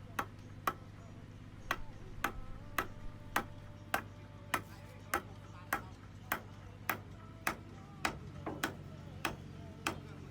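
Sharp knocks repeating evenly, a little under two a second, some with a brief ringing tone after them, over a low steady hum.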